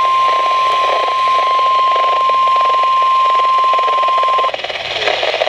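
NOAA Weather Radio 1050 Hz warning alarm tone, one steady pure tone over radio hiss, signalling that an alert broadcast is about to follow. It cuts off about four and a half seconds in, leaving the hiss.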